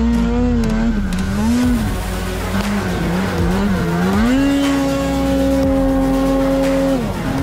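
Two-stroke mountain snowmobile engine under throttle, its pitch rising and falling for the first few seconds. About four seconds in it climbs to a high steady pitch that is held for a few seconds, then drops near the end.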